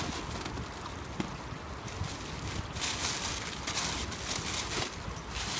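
Clear plastic bag rustling and crinkling as it is handled and opened. The crinkling is loudest from about halfway through, over a low steady rumble.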